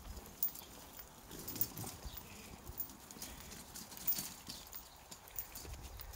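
Footsteps on a paved path mixed with the wheels of shopping trolleys clicking and rattling over the surface, a scatter of light, irregular taps.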